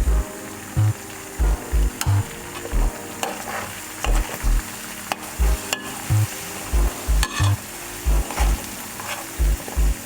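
Food sizzling in a frying pan while a utensil stirs and scrapes it, with short scraping clicks. Background music with a deep, pulsing bass line is the loudest thing.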